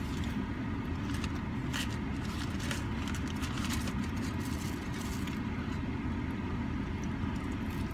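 Steady low rumble of an idling engine heard from inside a parked car, with a few faint clicks and rustles on top.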